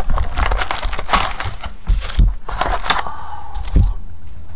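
Hands handling a cardboard trading-card hobby box and its foil-wrapped card packs: rustling and crinkling, with several dull knocks as the packs are set down in stacks on a wooden table.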